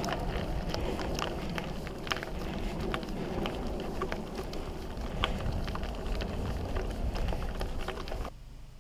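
A loaded mountain bike rolling over a rough track: a steady rumble of tyres and wind noise, with many small clicks and rattles. It cuts off suddenly near the end.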